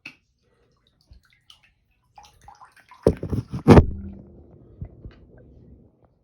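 Water splashing and knocking in a sink full of water about three seconds in, with a few sharp hits, then sloshing that dies away; a talking alarm clock is being drowned in the sink.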